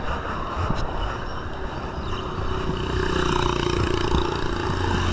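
Wind rushing over the microphone and tyres rolling on a concrete road from a moving road bicycle. A small motorcycle engine joins as a steady hum about halfway in, as one comes past.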